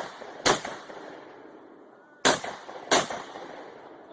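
Gunshots: four sharp cracks with short echoing tails, fired in two pairs about two seconds apart, the shots in each pair well under a second apart.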